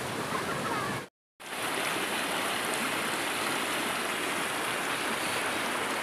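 Rushing water of a shallow rocky stream, a steady hiss, which cuts out completely for a moment about a second in and then resumes.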